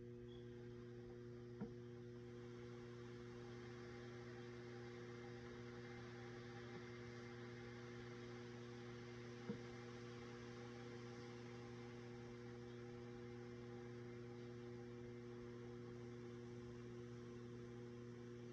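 Faint steady electrical hum from a plugged-in electric skillet, over a soft hiss of its contents steaming under the glass lid. Two faint ticks, about a second and a half in and again about halfway through.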